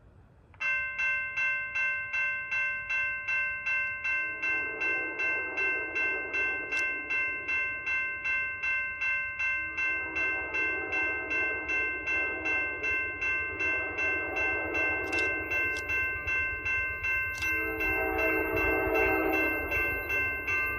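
Railroad grade-crossing bell starting to ring about half a second in, an even, fast clang of about two to three strikes a second, as the crossing signals activate for an approaching train. From about four seconds in, the approaching Amtrak Downeaster's horn sounds several long blasts for the crossing, growing louder toward the end.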